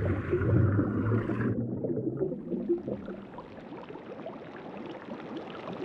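Gas bubbles streaming up from a volcanic CO2 seep on the seafloor, heard underwater as a dense fizzing crackle. A low hum under it stops about a second and a half in.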